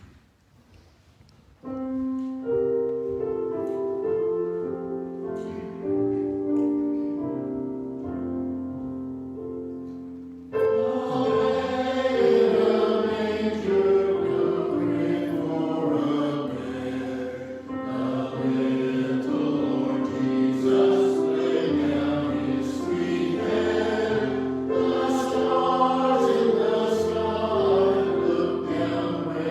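Choral music: a short instrumental introduction of steady held chords, then a choir begins singing with accompaniment about ten seconds in, louder and fuller.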